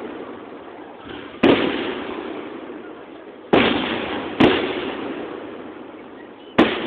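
Aerial firework shells bursting: four loud bangs, one to two seconds apart, each trailing off in a long rolling echo.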